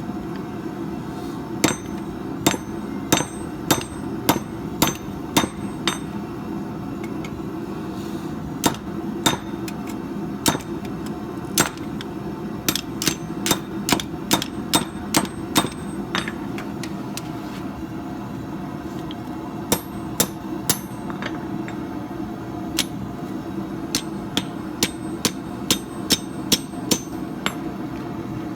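Forging hammer striking steel on an anvil, in runs of about two ringing blows a second broken by short pauses, over a steady low hum.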